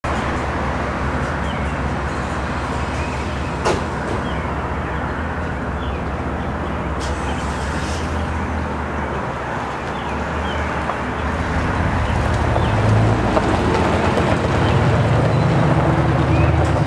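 Steady low engine hum from vehicles, swelling louder over the last few seconds, with a single sharp click about four seconds in.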